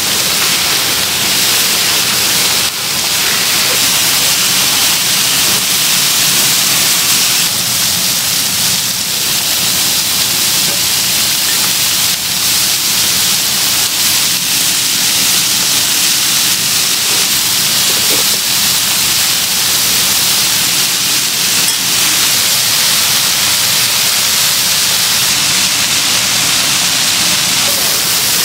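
Steady sizzling of food frying on a hot griddle, a continuous hiss that stays even throughout.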